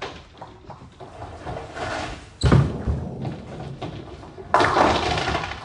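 Ninepin bowling alley: a heavy ball lands with a sudden loud thud about two and a half seconds in. About two seconds later comes a second loud, noisy burst that dies away over about a second.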